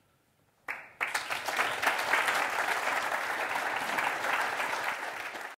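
Audience applauding, beginning about a second in and cut off abruptly near the end.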